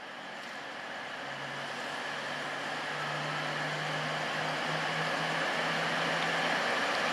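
Class 222 Meridian diesel multiple unit pulling away from a station platform, its underfloor diesel engines working under power, the sound building steadily, with a low steady drone coming in about a second in.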